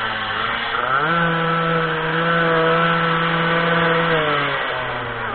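Minimoto's small two-stroke engine revving up about a second in, held at high revs for about three seconds, then dropping off near the end as the throttle is closed.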